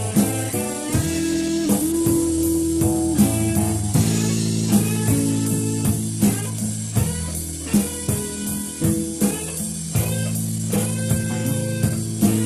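A rock band playing the song: electric guitar holding and bending notes over bass and a drum kit.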